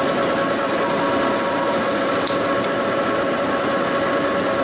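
40-inch swing engine lathe running with its four-jaw chuck spinning a driveshaft yoke: a steady mechanical hum with a few held tones. There is a faint click a little past halfway.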